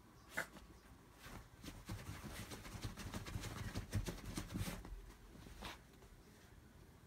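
A poodle scratching and digging at a bedsheet with its front paws: a quick run of scratchy rustling of the fabric, busiest in the middle, with a sharp tick about half a second in and another near the end.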